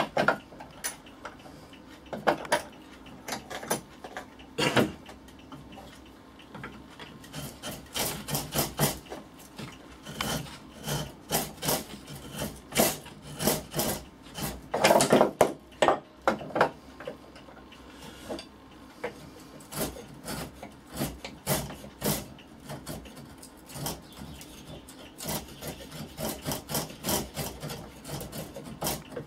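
Runs of short rubbing strokes from a metal hand tool filing and scraping along the edge of a hardwood dovetail-plane body held in a vise, trimming it until it fits. The strokes come in bursts with brief pauses, loudest a little past halfway.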